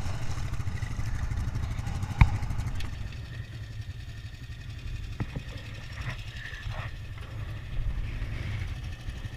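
Strong wind buffeting the microphone as a steady low rumble, with a single sharp click about two seconds in.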